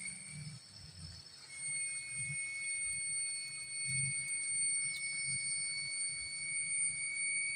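A steady, high-pitched trilling whine from a forest insect, starting about a second and a half in and holding on one pitch with overtones.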